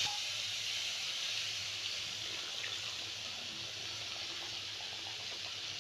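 Water being poured from a vessel into a kadhai of hot, oil-released masala paste: a steady hiss that slowly fades and stops at the end.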